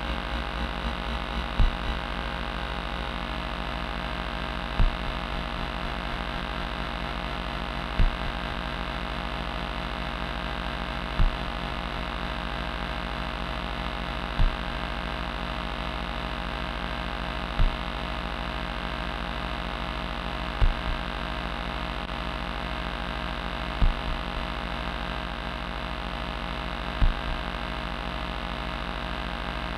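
Modular synthesizer playing a dense, steady electronic drone of many held tones, with a short low thump repeating evenly about every three seconds.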